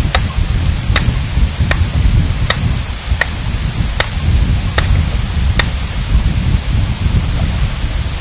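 Rock hammer striking stone in a steady rhythm, sharp taps about every three-quarters of a second, eight of them before they stop near the end, over a constant low rumble.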